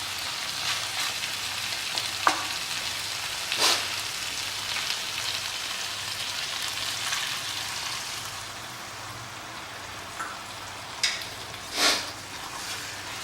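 Marinated mutton sizzling in ghee in a pan over high heat as it is stirred and roasted. A few sharp knocks or scrapes of the spatula against the pan come about 2 and 4 seconds in and twice near the end.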